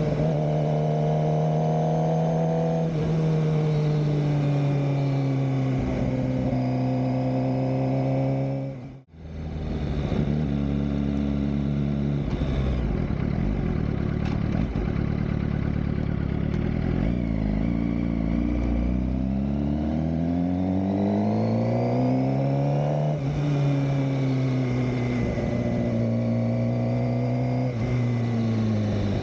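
Suzuki GSX-R600 K7's inline-four engine heard while riding, its note mostly steady. The sound drops out for a moment about nine seconds in. Later the engine rises in pitch under acceleration, then eases back off.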